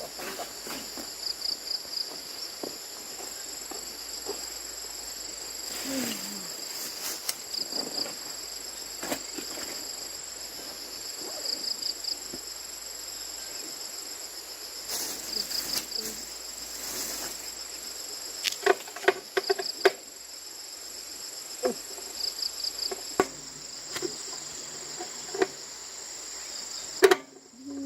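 Insects trilling steadily at a high pitch, with short repeated chirp bursts every few seconds. Over them come scattered clicks and knocks of hand work, with a cluster of sharper clanks about two-thirds of the way through and one loud knock near the end.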